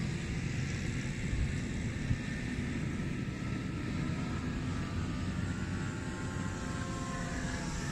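Saito FA-72 four-stroke glow engine of a radio-controlled model airplane, swinging a 12x6 propeller, droning steadily as the plane flies overhead, its note shifting slightly in pitch as it passes.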